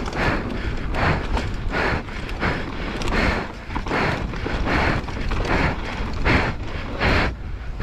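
Downhill mountain bike running fast down a dirt trail, heard from a rider-mounted camera: a steady rumble of tyres on dirt under a rhythmic rush that comes about every three-quarters of a second.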